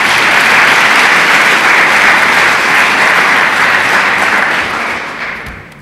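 Audience applauding, dense and steady, dying away near the end.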